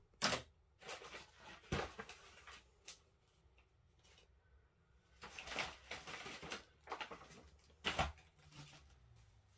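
Someone rummaging for a cloth among craft supplies: a few short knocks and rustles of things being moved, with a longer rustle about five to six and a half seconds in.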